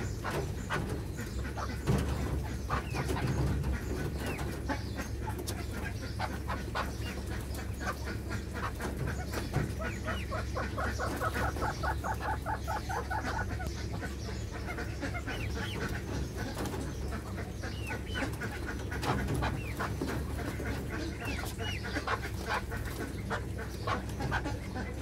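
Young partridges calling with many short, sharp chirps, thickest in a quick run of calls about halfway through, over a steady low hum.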